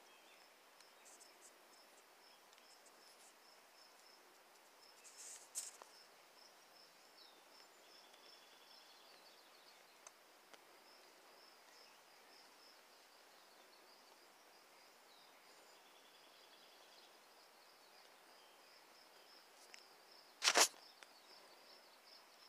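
Faint, steady high chirping that repeats a few times a second, with a brief rustle about five seconds in and a short, loud knock near the end.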